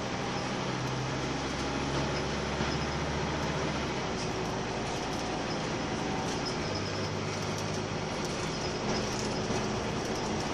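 Scania K230UB Omnilink bus heard from inside the saloon while under way: a steady engine note under road and body noise. The engine note changes about four seconds in and again near seven seconds, as the engine speed shifts.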